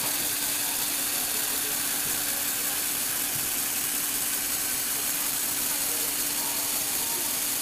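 Small electric motor driving Lego Technic gearing that turns and tilts a model car, running steadily: a constant hum with an even hiss.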